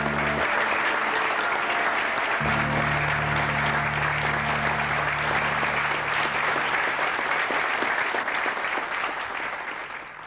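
Applause over background music with held low notes. The low notes drop out briefly about half a second in and come back, and the applause and music fade out together near the end.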